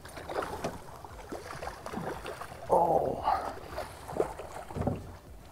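A large northern pike thrashing and splashing at the surface beside the boat as it is brought to the net, with water sloshing and crackling in irregular bursts; the loudest splash comes about three seconds in.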